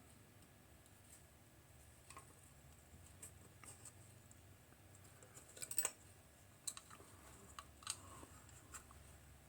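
Faint scattered clicks and light taps of small hard parts being handled, with a quick cluster of louder clicks about six seconds in.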